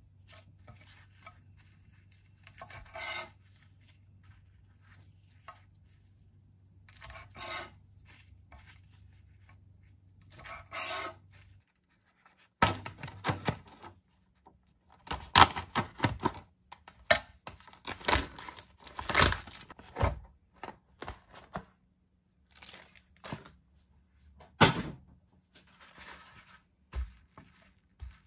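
Kitchen food-preparation handling sounds: scattered short rustles, tearing and knocks. They come a few seconds apart at first, then grow louder and more frequent from about twelve seconds in.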